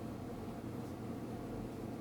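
Steady low background hum and hiss with no distinct events.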